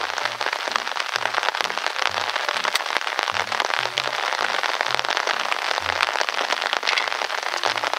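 Heavy rain pouring down: a dense, steady hiss with many sharp drop hits close by.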